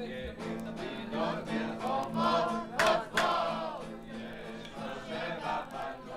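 Recorded music: a band with held low tones and a group of voices singing together, with a couple of sharp louder vocal peaks about halfway through.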